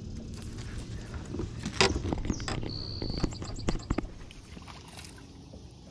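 Clicks, knocks and rattles of a small caught fish being unhooked by hand from a hard lure. About three seconds in there is a brief high squeak and a quick run of rapid clicks, then the sounds stop.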